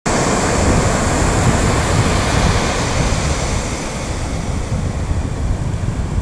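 Ocean surf washing ashore in a steady rush, with wind buffeting the microphone.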